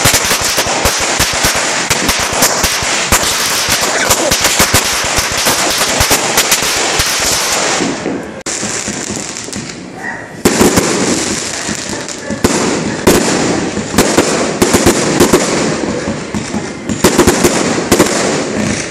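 Fireworks and firecrackers going off: a dense run of rapid crackling cracks for about eight seconds, then after a short lull a second spell of sharp bangs and crackle.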